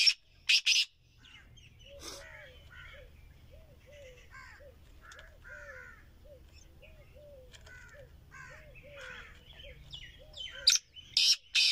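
Caged francolin (teetar) calling: loud, sharp high-pitched calls at the start and again near the end, with soft, low, repeated notes about twice a second in between.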